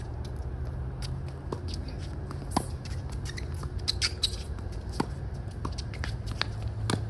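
Tennis rally on a hard court: rackets striking the ball and the ball bouncing, a sharp pop every second or so at irregular spacing, with short high squeaks in between.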